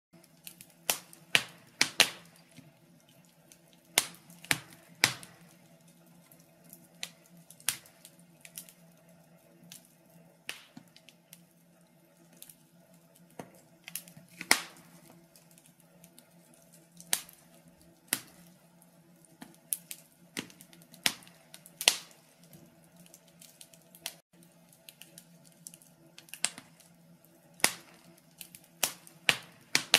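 Wood fire crackling in a stove: irregular sharp pops and snaps, over a faint steady hum.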